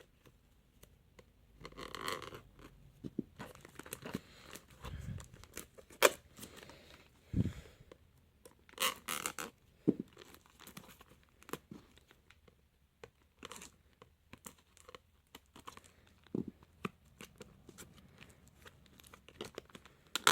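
A sealed trading card box being worked open by hand: scattered tearing and scraping of the packaging, with a few knocks and one sharp click about six seconds in.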